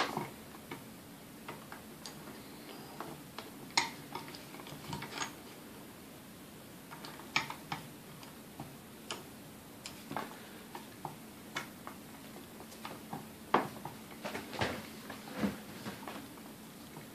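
Irregular metallic clicks and knocks of pliers working against the gear housing and fittings of a Sunbeam Mixmaster Model 12 stand mixer as a very tight part is wrestled loose.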